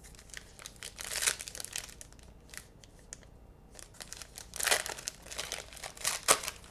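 Plastic wrapper of a basketball trading-card pack crinkling and tearing as it is ripped open and handled, in irregular bursts with three louder rips.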